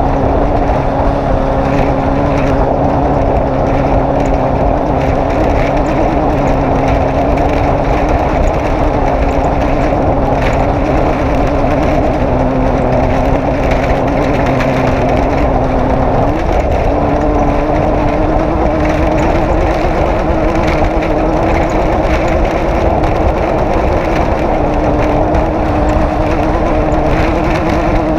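Off-road race vehicle's engine running hard at a steady note, stepping up in pitch a little past halfway.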